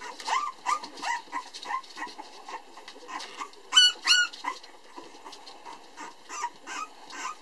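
French bulldog puppies whining and yipping in short pitched calls, with two loud, sharp yelps about four seconds in and a few more whines near the end.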